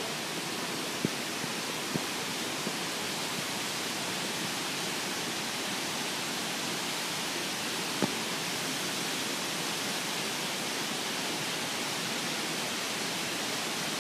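Mountain stream rushing steadily, an even, unbroken wash of water, with a few sharp clicks about one, two and eight seconds in.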